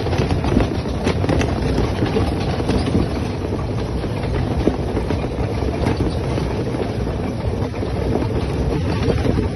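ATV engines running as the quads ride along a dirt trail, a steady engine noise with wind on the microphone.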